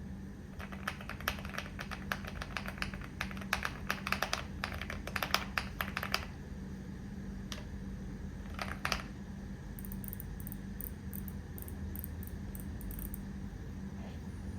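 Typing on a Keychron Q1 HE keyboard with Hall-effect magnetic switches. A fast run of keystrokes lasts about five seconds, a few more presses follow, then lighter, higher clicks near the end.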